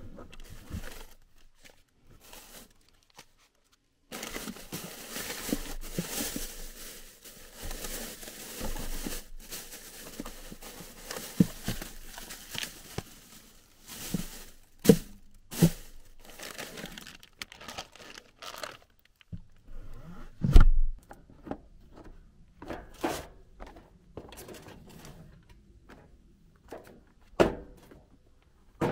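Plastic food bags rustling and crinkling as they are handled, followed by scattered knocks and clunks and one heavy thump about two-thirds of the way through.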